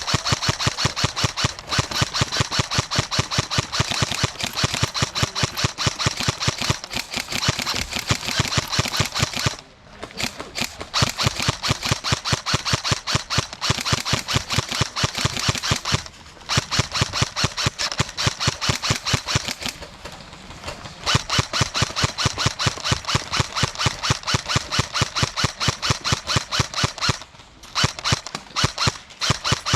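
Airsoft gun firing a long, rapid, regular string of sharp shots, about five a second, with a few short pauses.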